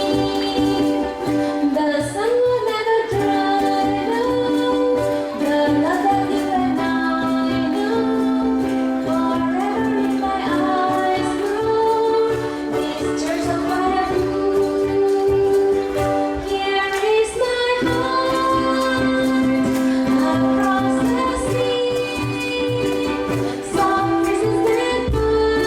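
Music: a ukulele ensemble playing a song, with a held sung melody over a steady beat.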